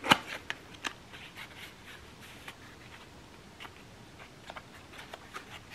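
Small cardboard box being opened by hand: faint scraping and scattered light clicks as the tuck flap is worked loose.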